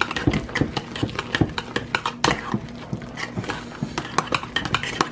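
Hand potato masher working mashed potatoes in a stainless steel pot, its metal clinking and knocking against the pot in quick, irregular strokes, several a second.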